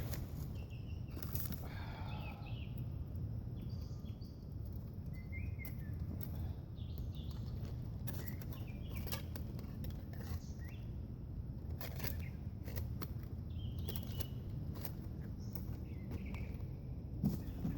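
Woodland ambience: a few short bird chirps and scattered light clicks over a steady low rumble.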